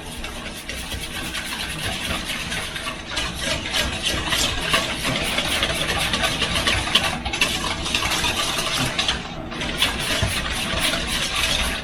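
A thick marinade being stirred vigorously in a bowl: the utensil scrapes and clatters steadily and quickly, with a couple of brief pauses.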